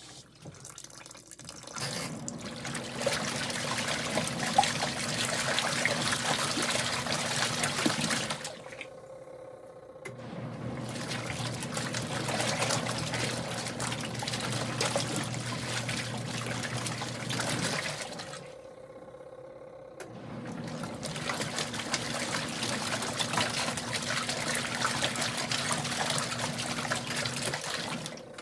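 Kuppet portable washing machine agitating a rinse load: the motor hums and the water sloshes in three spells of six to seven seconds each, with a pause of about two seconds between spells. The hum changes pitch from one spell to the next.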